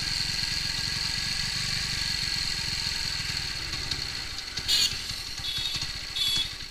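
TVS Apache RTR 200's single-cylinder four-stroke engine idling while the carburettor's fuel screw is turned in, leaning the mixture toward the point where the idle starts to falter, just short of stalling. Its level eases slightly toward the end, with two brief rattles near the end.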